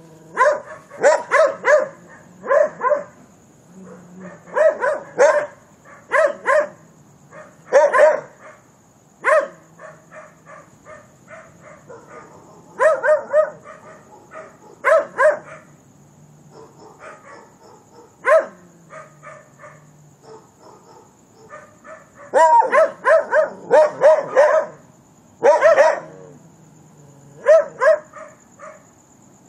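Dogs barking in bursts of two to five barks with short pauses between them, over a steady high chirring of crickets.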